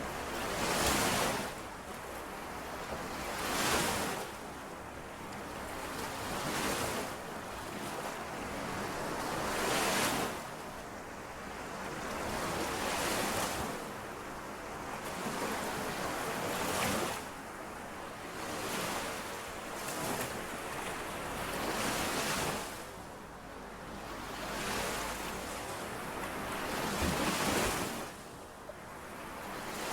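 Small lake waves washing in against the shore, a rising and falling hiss every two to three seconds, with some wind on the microphone.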